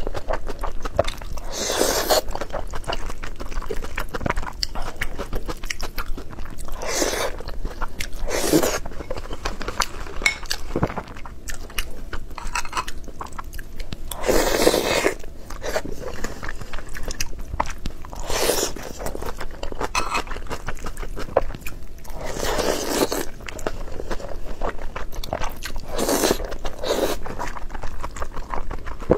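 Close-miked eating sounds: continuous chewing with wet mouth clicks, broken by about seven louder bursts, the strongest about halfway through.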